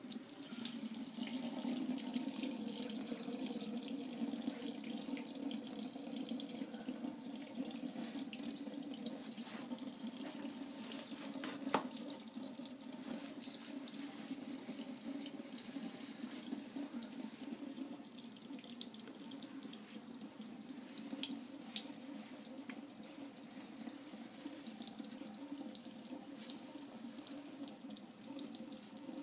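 Bathroom sink tap turned on, with water running steadily into the basin.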